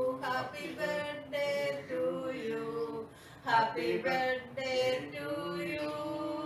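A man and a woman singing together without accompaniment: held notes that move from pitch to pitch, with short breaths between phrases.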